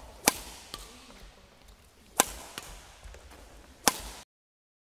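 Badminton racket striking the shuttlecock in smashes: three sharp cracks about two seconds apart, each ringing briefly in a large sports hall, with fainter ticks between. The sound cuts off suddenly near the end.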